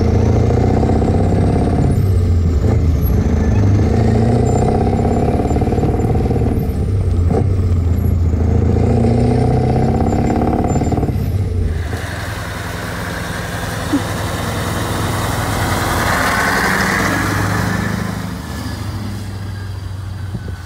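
Scania 143 lorry's V8 diesel engine pulling hard, heard inside the cab; its note climbs and breaks off a few times, as if between gear changes. About twelve seconds in, the lorry is heard from outside driving off with a trailer, the engine and road noise swelling and then fading.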